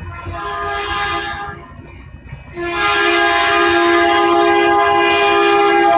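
Caltrain locomotive horn at a road grade crossing, sounding a multi-note chord: a short blast, a brief pause, then a long, louder blast from about two and a half seconds in. This is the warning signal for the crossing.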